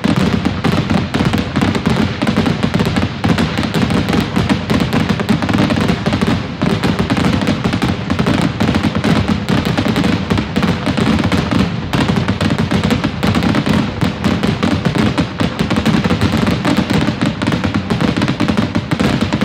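Fireworks display in a dense, continuous barrage of booms and crackling, shells launching and bursting with no break between them.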